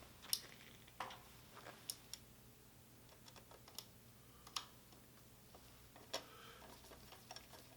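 Faint, scattered clicks and light taps, a few seconds apart, from a hand screwdriver and a small Phillips screw being started into a pump's bottom case.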